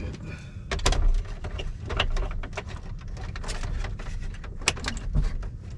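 Irregular plastic clicks, knocks and scraping as an instrument cluster is worked into its opening in a dashboard, with a couple of sharper knocks about a second in and near the end.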